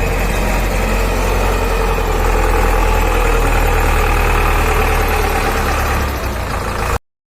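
Xiandai XD926G wheel loader's four-cylinder inline diesel engine running steadily. The sound cuts off suddenly near the end.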